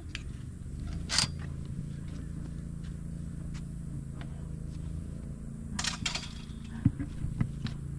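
A metal chain-link gate latch clinks about a second in, over a steady low hum, with a rattle around the middle and a few light clicks near the end.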